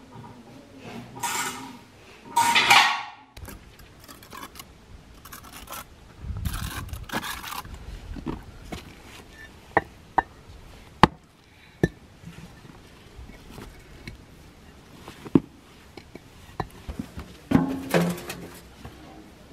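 Old bricks being knocked together and set down by hand: a handful of sharp clacks spread over several seconds, with scraping and shuffling between them. A loud rushing noise fills the first few seconds, and a short voice-like call comes near the end.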